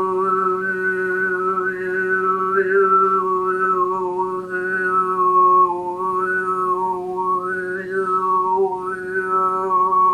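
A man overtone singing: he holds one steady low drone while the shape of his mouth and tongue makes single harmonics of his voice stand out as a higher melody that steps up and down above it.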